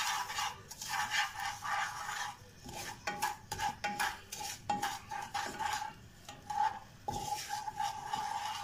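Slotted wooden spatula stirring and scraping sugar and water around a saucepan in irregular strokes, with scraping clicks against the pan's base and sides. This is the start of caramel, with the sugar dissolving into syrup over a medium-to-low flame.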